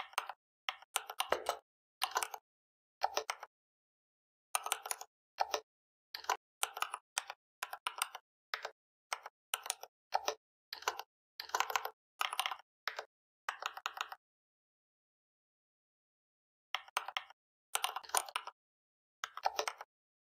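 Typing on a computer keyboard: quick runs of keystrokes with short breaks between them, a pause of about two and a half seconds, then a few more bursts near the end.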